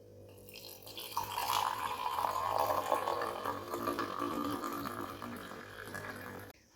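Liquid pouring or running in a steady splashing stream that builds up over the first second or so and cuts off suddenly near the end.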